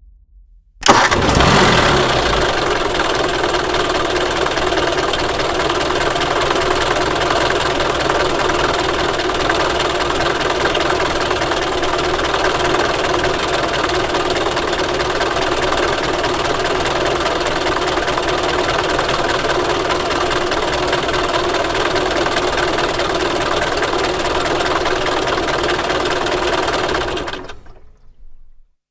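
Bus engine starting about a second in with a sudden loud catch, then idling steadily, and cutting off near the end.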